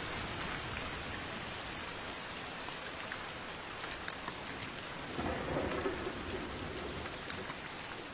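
Steady rain with scattered drop ticks, and a brief low rumble of thunder swelling about five seconds in.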